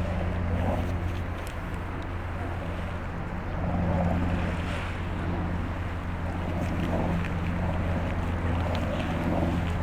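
Steady low rumble of wind buffeting the microphone and surf on the shore, with a few faint crackles from a bonfire.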